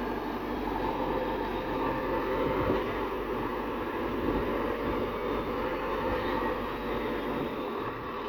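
Heavy machinery running steadily: a dense mechanical rumble and rattle that goes on without pauses.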